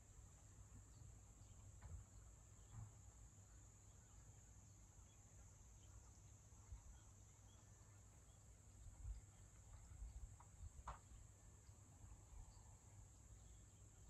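Faint rural ambience in light rain: a steady high hiss and a low rumble, with a few faint scattered animal calls and one short, louder call about eleven seconds in.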